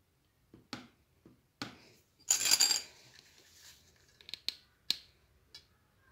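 Light clicks and taps of small crystal stones and a hot glue gun being handled on a mirror, with one louder, brief scrape a little over two seconds in.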